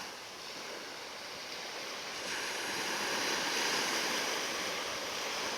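Ocean surf breaking and washing up a beach: a steady rush of waves that swells louder about two seconds in.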